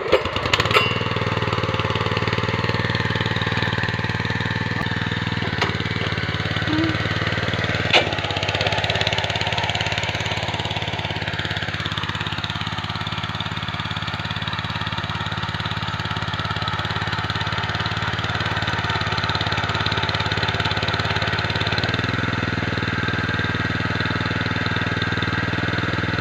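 Walk-behind power tiller's petrol engine starting at the outset and then running steadily at idle, now firing on a newly fitted spark plug after a worn plug had left it blowing black smoke and refusing to start. A few sharp clicks sound just after it catches and again about eight seconds in.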